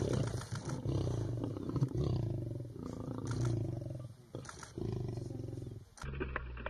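Male lion growling as it feeds on a carcass: a long, low, rough growl, then a second one after a short break.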